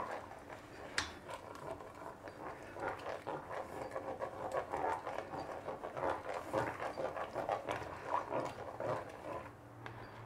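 A spoon stirring and scraping in a stainless steel pot of hot broth, dissolving tomato paste: a steady rhythmic swishing and scraping that stops about a second before the end.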